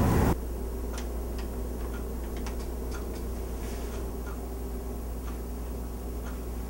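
Faint ticks, roughly two a second and not quite even, over a steady low hum.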